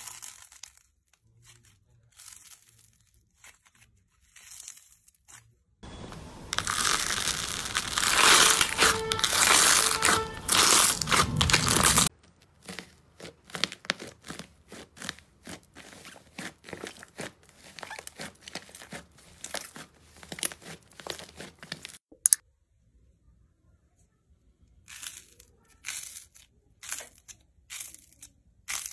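Hands squeezing, stretching and pulling apart slime, making quick runs of crackly popping and crinkling. About six seconds in a louder, denser crackling runs for several seconds and stops suddenly, and there is a short pause later on.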